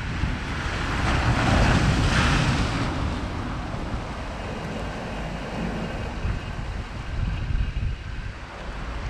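Sea surf breaking and washing over the rocks of a breakwater, with wind blowing on the microphone. The surf swells to its loudest about one to three seconds in, then settles to a steady wash.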